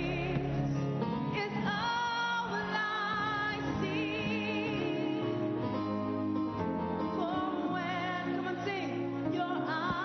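Gospel praise music: sung melody with vibrato on held notes over steady instrumental accompaniment.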